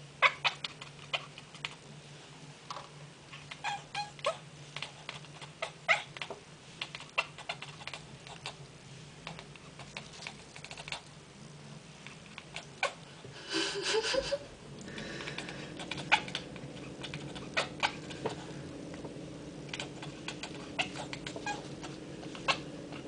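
Domestic cat chattering at pigeons it is watching through a window: irregular rapid clicks and chirps, the excited hunting chatter of a cat that sees prey it cannot reach. About halfway through it gives a short, louder call that rises in pitch.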